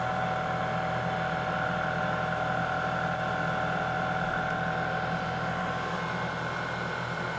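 BGA rework machine running steadily: a constant machine whir with a few fixed humming tones, its fans and vacuum working after the heating cycle.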